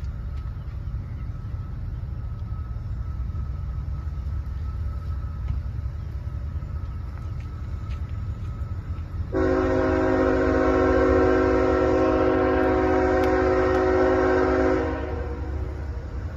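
Locomotive air horn of an approaching CSX coal train, led by ET44AH 3295, sounding one long steady chord about nine seconds in and holding it for about five and a half seconds. Under it runs a low steady rumble.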